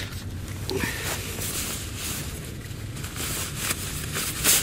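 Soft rustling of a nylon rain jacket being handled and taken off, with a louder brief rustle near the end.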